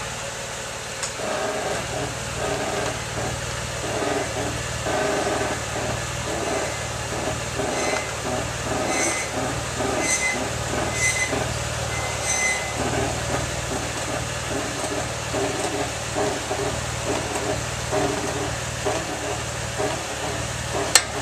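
2003 Mazda6 creaking again and again as the steering wheel is turned with the car standing still, over the steady hum of the engine idling. The creak is the old-wagon creak that the car also makes while driving, with or without braking or turning.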